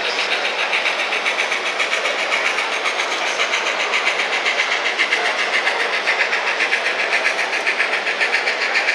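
Bachmann N-scale K4 steam locomotive's DCC sound decoder chuffing through its small onboard speaker, a rapid, even, steady beat with a thin, tinny character.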